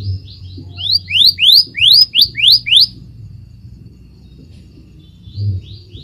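Scarlet minivet singing: a run of about a dozen quick, rising whistled notes that start faint and grow louder over about three seconds. After a pause, the phrase starts again near the end.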